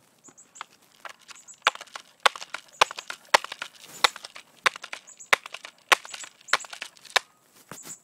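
Footsteps crunching on dry leaves and twigs: a steady walking pace of sharp crunches, about three every two seconds, starting about a second and a half in.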